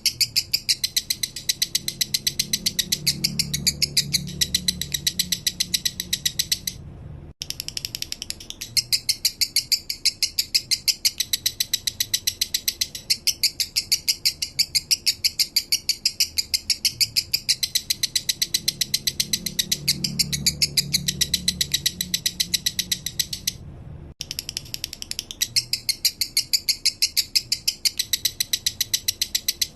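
Male lovebird singing its slow 'minor' song: a fast, even run of high, clicking chirps, broken twice by short gaps.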